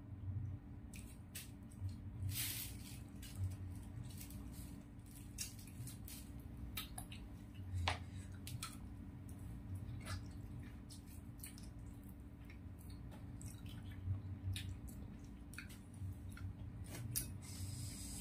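Close-miked wet mouth sounds of eating spicy chicken feet by hand: irregular smacks, sucking and slurping clicks as the meat and sauce are sucked off the bones and fingers, over a steady low hum.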